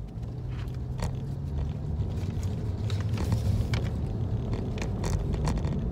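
Steady low rumble of a car, heard inside the cabin, with crinkling and rustling of a paper hot dog tray and paper bag being handled.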